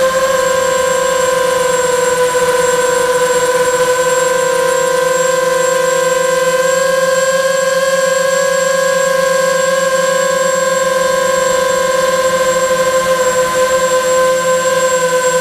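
Steady whine of a radio-controlled model aircraft's motor, heard close up from the camera mounted on the aircraft in flight, holding an even pitch.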